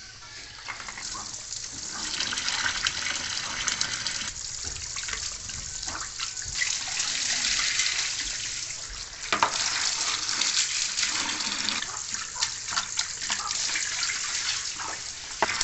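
Tap water running from a PVC pipe into a plastic bowl while basil leaves are rinsed by hand. The flow builds over the first couple of seconds into a steady splashing hiss, with sharper splashes and clatters from the hand working the leaves.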